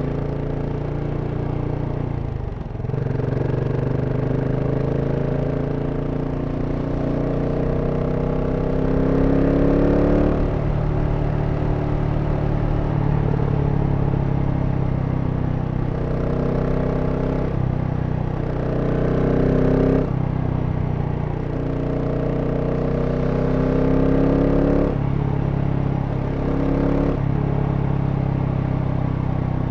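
GasGas SM 700 supermoto's single-cylinder engine on its stock exhaust, accelerating while riding: the engine note climbs and then drops back sharply at each gear change, several times over.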